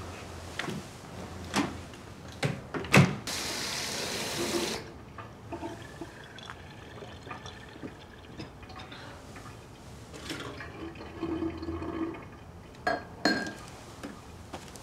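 A few sharp knocks, then water runs from a kitchen tap for about a second and a half. Later come light clatters of plastic cups and containers being handled at a sink and dish rack.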